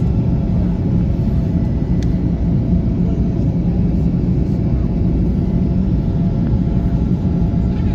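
Steady, loud drone of an airliner's engines and airflow heard inside the passenger cabin, a low rumble with faint steady tones over it.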